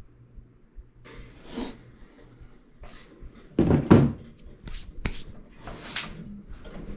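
Minibike tire and rim being handled: scattered rubber rubbing and knocks, loudest about three and a half seconds in, with a sharp click about five seconds in.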